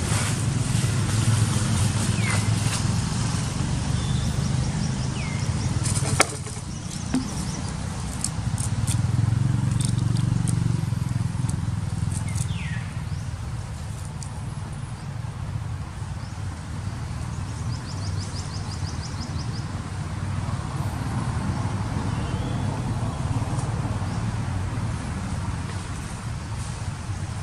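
Outdoor ambience dominated by a steady low rumble, with dry leaves crackling now and then, a sharp knock about six seconds in, and a few short high chirps.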